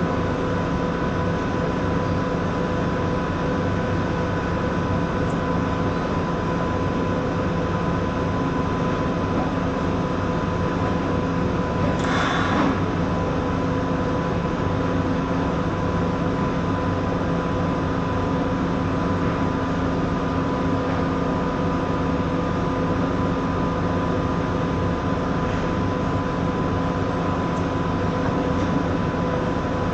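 TIG welding on a pipe: a steady arc hiss over an electrical hum from the welding machine, with a short burst of hiss about twelve seconds in.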